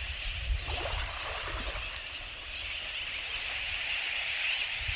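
A large flock of seabirds calling together, a steady high chatter that grows a little louder in the second half. There are a few lower falling calls about a second in, over a low rumble.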